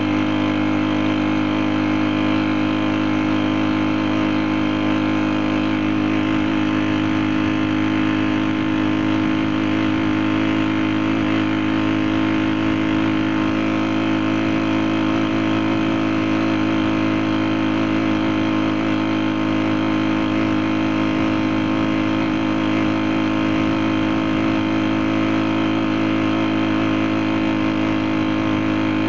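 Small 35 cc four-stroke engine running at a steady speed, its pitch and loudness holding constant throughout.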